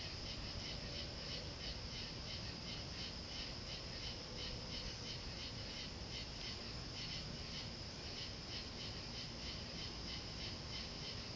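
Night insect chorus of crickets or katydids: a steady, high-pitched pulsing, about three pulses a second.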